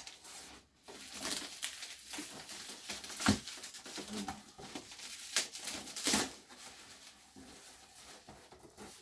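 Bubble wrap and packing material rustling and crackling inside a cardboard shipping box as it is rummaged through and a boxed item is pulled out. The sound comes as irregular sharp crackles, with the loudest a few seconds in and again around six seconds.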